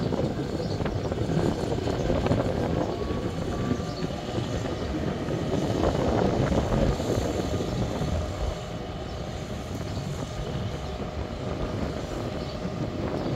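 EMD GR12W diesel-electric locomotive running as it rolls slowly along rusty yard rails: a steady diesel engine rumble mixed with wheel-on-rail noise, a little louder in the first half.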